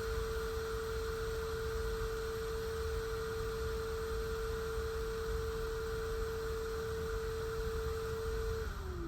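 A small electric blower motor hums with a steady tone, then winds down in pitch near the end as it is switched off.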